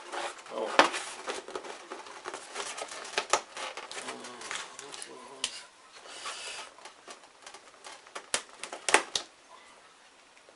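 A cardboard box being handled while a pen is jabbed and scraped through the tape sealing its lid: irregular scratches, clicks and sharp taps on cardboard, with rustling in between.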